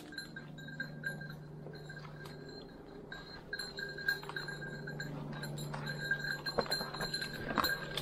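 Faint, flickering metallic ringing of a bird dog's collar bell, with scattered rustles and clicks of footsteps through dry leaves and brush.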